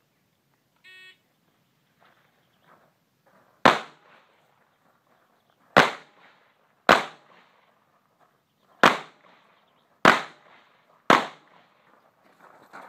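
Shot timer's start beep about a second in, followed by six rifle shots fired over the next ten seconds, at uneven gaps of one to two seconds.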